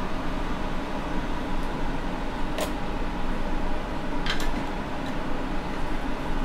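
Hot-air rework gun blowing steadily with a hiss and a faint hum while a chip is soldered onto a phone logic board. Two short clicks, about two and a half and four seconds in.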